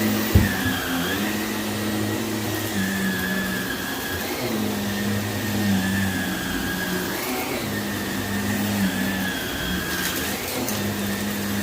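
Vacuum cleaner running over carpet with loose debris, its motor pitch dipping and recovering every couple of seconds as it is pushed back and forth. There is a sharp knock about half a second in.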